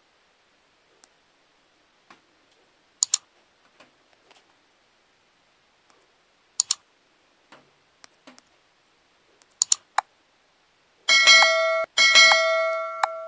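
Sharp single mouse-click sound effects a few seconds apart, then near the end a bright bell-like chime struck twice in quick succession that rings on and fades: the sound effects of an animated subscribe button and its notification bell.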